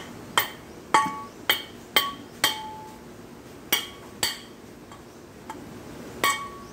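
Mallet blows on an alternator's end housing to knock the rotor free: five sharp hits about two a second, then three more after a short pause, several leaving a brief metallic ring.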